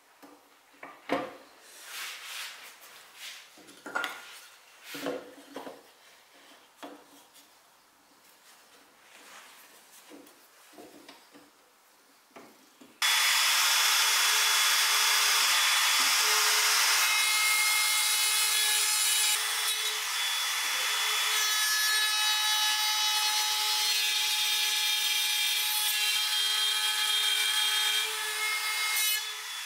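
A series of light knocks and scrapes of wood being handled, then about halfway through a power tool cutting wood starts abruptly. It runs loud and steady with a high whine until the end.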